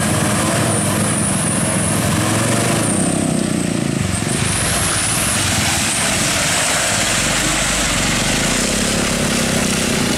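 Diesel engine of a laden Mitsubishi Fuso Canter truck running steadily under load as it pulls through deep mud.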